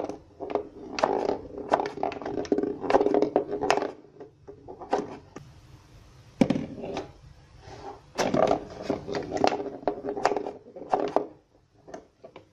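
A small ball rolling and knocking around a cardboard pinball board: runs of rattling clacks against the cardboard walls and flippers. There is a quieter spell in the middle, a single sharp knock about six and a half seconds in, then more clattering, and it falls quiet near the end.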